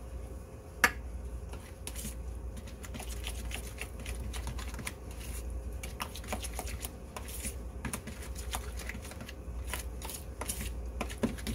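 Metal spoon stirring soft garlic butter in a plastic mixing bowl: irregular light clicks and scrapes of the spoon against the bowl, with one sharper click about a second in.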